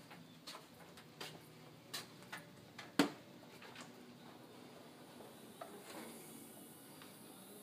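Footsteps on a tile floor: light taps at about walking pace, the sharpest about three seconds in, over faint room tone.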